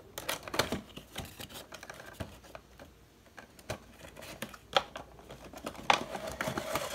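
A cardboard toy box with a clear plastic window being opened by hand: irregular clicks, taps and scrapes as the tucked top flap is worked open, with two sharper knocks about five and six seconds in.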